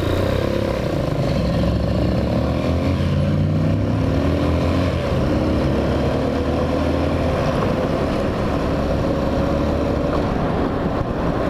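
Hawk 250 motorcycle's engine pulling away from a stop and accelerating. Its pitch rises and drops back at a few upshifts over the first several seconds, then it settles to a steady cruise.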